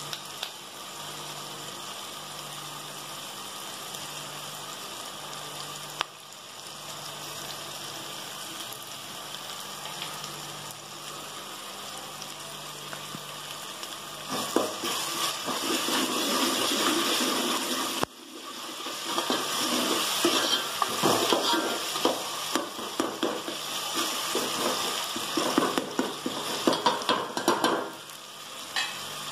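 Onion and tomato frying in oil in a metal pot, a steady sizzle. About halfway through, a metal ladle starts stirring the mix, and the sizzle grows louder with scraping and clattering against the pot. It settles back to a quieter sizzle near the end.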